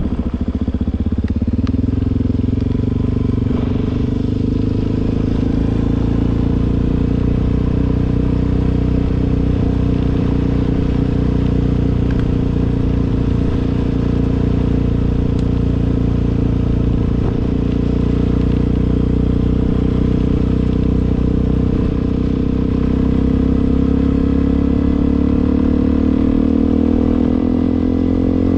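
Suzuki DR-Z400's single-cylinder four-stroke engine running steadily under way, its pitch rising a little near the end.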